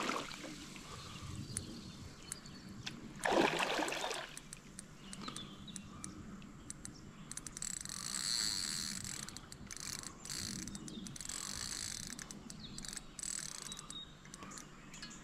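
A hooked carp thrashing and splashing at the surface of the water as it is played in, with short splashes at the start and the biggest about three seconds in.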